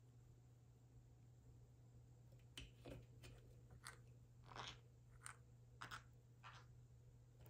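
Faint, short crunching and crackling from a green-cheeked conure's beak as it preens its companion's head feathers: about eight irregular crunches starting a little over two seconds in.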